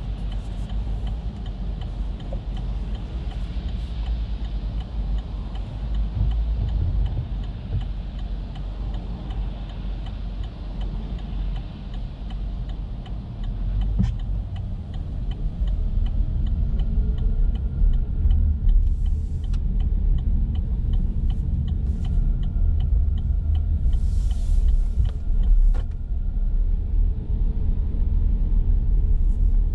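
Chevrolet Bolt electric car driving on wet roads in the rain: a steady low tyre-and-road rumble that gets louder a little past halfway. A regular ticking, the turn-signal indicator, runs through the first half, and there are two short hissing swishes later on.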